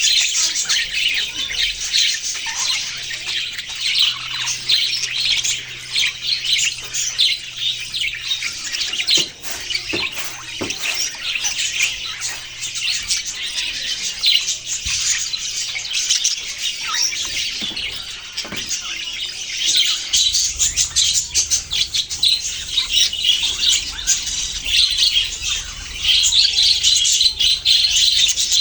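A flock of budgerigars chattering and chirping without a break, many high calls overlapping, with harsher squawks mixed in.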